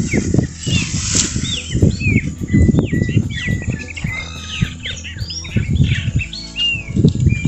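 Small birds chirping, with many quick rising-and-falling notes, over loud, uneven low rumbling of gusty wind on the microphone.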